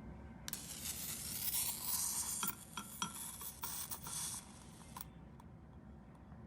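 Electric arc lighter firing: a high hissing crackle with clicks that starts about half a second in and cuts off sharply about four and a half seconds later.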